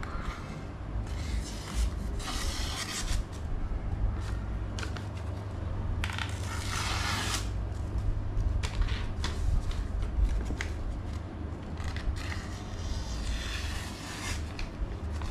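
Sheets of paper being sliced with a golok (machete) blade, a series of short papery cuts and rustles with the longest cut about six seconds in: a test of how sharp the edge is. A steady low hum runs underneath.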